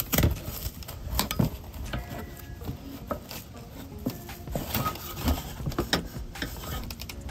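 Irregular clicks, taps and scrapes of a hand and a small hand tool working at a travel trailer's corrugated underbelly panel, with several sharper knocks about a second apart in the first half.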